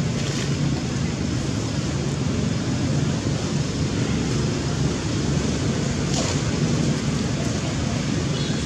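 Steady low rumbling background noise with a faint low hum, with no clear animal calls standing out.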